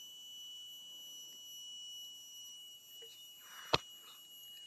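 Steady high-pitched insect drone with a single sharp click about three-quarters of the way through.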